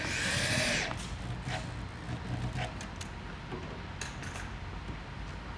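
Metal parts of a sofa's reclining mechanism and tools being handled: a short rasping scrape lasting under a second, then several light clicks and taps.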